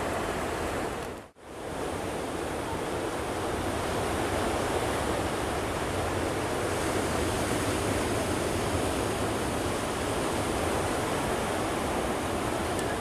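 Steady broad roar of a Boeing 777's jet engines and rushing air, with a brief dropout about a second in.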